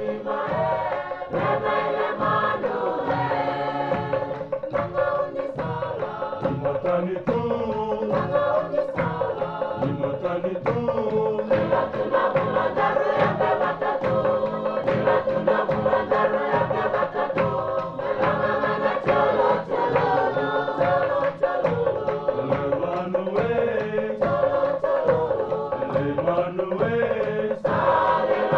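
Background music: voices singing together over a steady beat, with a held drone note underneath.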